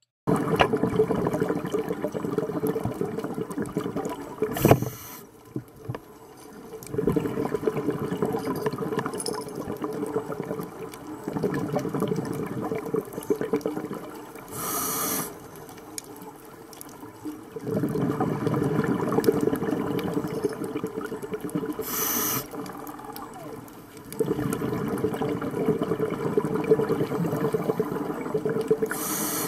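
Scuba breathing heard underwater through a regulator. Long bubbling exhalations of several seconds each alternate with short, sharp hissing inhalations, repeating every several seconds.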